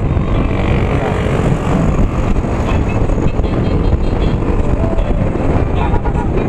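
Motorcycle riding steadily along a road: loud, continuous wind rush on the microphone mixed with engine and tyre noise.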